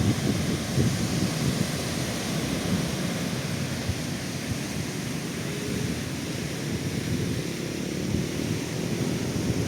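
Sea surf washing steadily on a beach, with wind gusting on the microphone.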